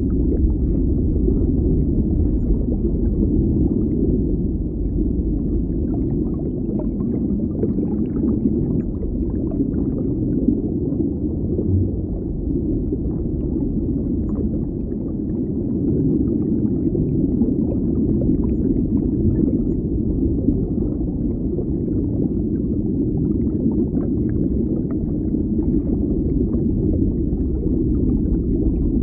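Steady low underwater rumble of a deep-water ambience, with faint scattered crackles and ticks above it.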